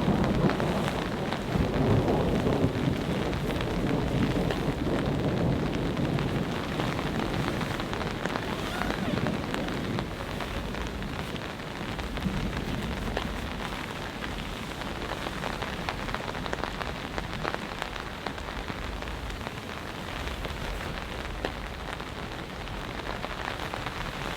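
Steady rain falling, with many separate drops pattering on surfaces; fuller and louder for about the first ten seconds, then steadier.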